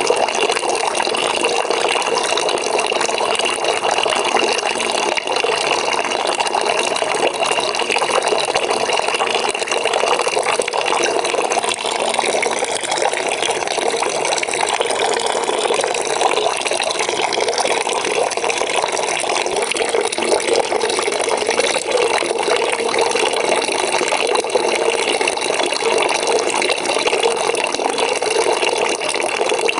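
Water pouring into a bucket as it fills, a steady, unbroken rushing splash.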